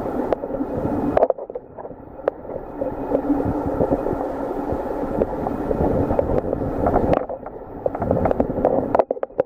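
Muffled water noise heard underwater: a steady low rush with scattered small clicks and knocks. It drops abruptly in level about a second in and builds back up later.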